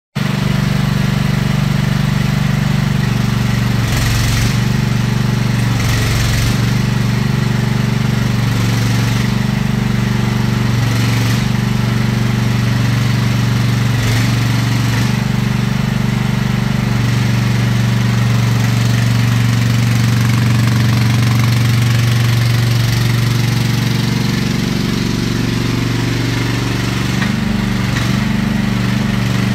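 AGT Industrial QK18RXS-C mini excavator's engine running steadily while the boom, arm and tracks are worked. Its pitch sags and wavers briefly near the end, and several short, sharper noises stand out over it in the first half.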